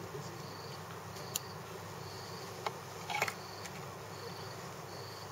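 A cricket chirping steadily in the background, one short high chirp about every second. A few light clicks around the middle, from small scissors snipping fibres off a tied fly.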